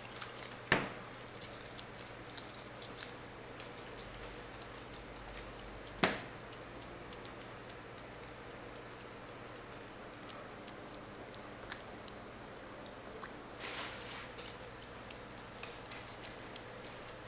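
Gloved hands pressing and shaping soft cookie dough, with faint ticks and crackles. Two sharp knocks stand out, about a second in and about six seconds in, and a brief rustle comes later.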